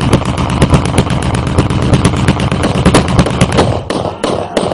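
A rapid string of sharp bangs, about ten a second, thinning to a few scattered bangs near the end.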